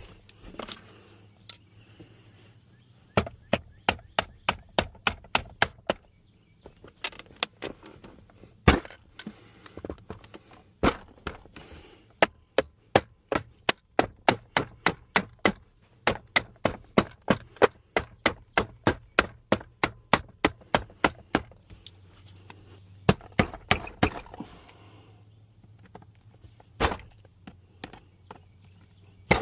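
Repeated sharp taps on the hinge pin of a second-generation Dodge truck's center console lid, driving the pin back into the hinge. The taps come about three a second in several runs, with short pauses between, and one lone knock near the end.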